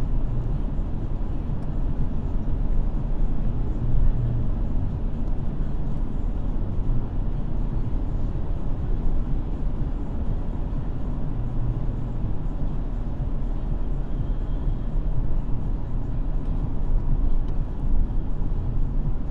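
Car driving at a steady speed: a continuous low rumble of engine and tyre noise on the road surface.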